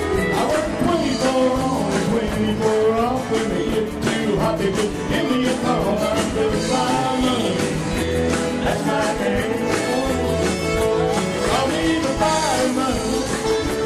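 A live country-rock band playing, with electric guitars, keyboard and drums under a sung lead vocal.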